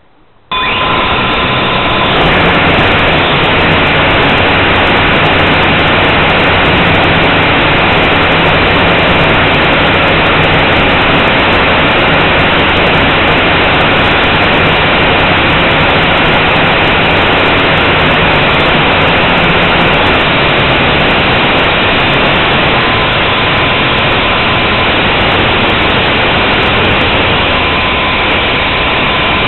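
Blade 180 quadcopter's motors and propellers spinning up suddenly about half a second in, then running steadily at a loud, even hum for takeoff and flight, heard close up through the drone's own camera microphone.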